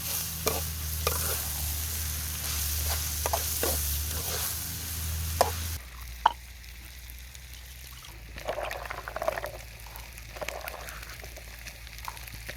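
Food frying and sizzling in a pan while a utensil stirs and clicks against it. About six seconds in, the sizzle cuts off abruptly, leaving quieter stirring and a few clinks.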